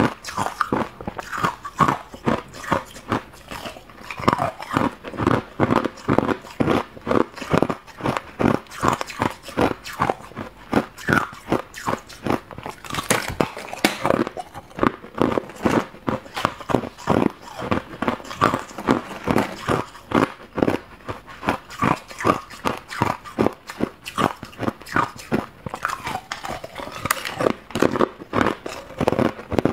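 Hard clear ice being bitten and chewed close to a lapel microphone: a steady run of sharp crunches, about two a second.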